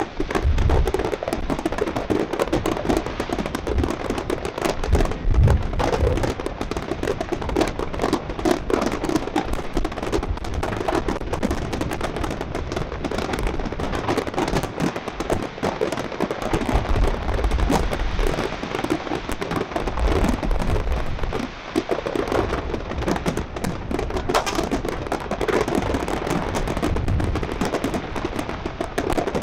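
Fireworks display: a dense barrage of aerial shells bursting and crackling without pause, with heavier low booms every few seconds.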